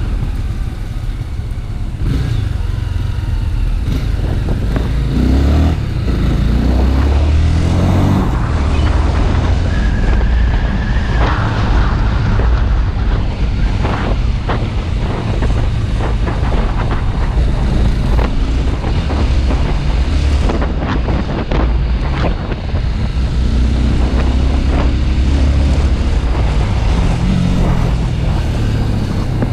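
Honda Twister motorcycle's single-cylinder engine running while ridden, its pitch rising and falling as the throttle and speed change.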